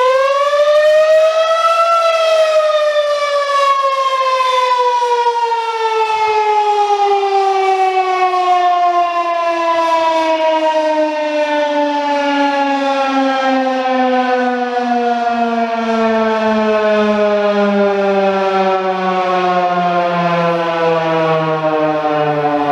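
Federal Signal 2001-130 electromechanical tornado siren sounding a short alert as its daily noon test. Just after spinning up, its wail peaks in pitch about two seconds in, then winds down in one long, slow fall as the rotor coasts down.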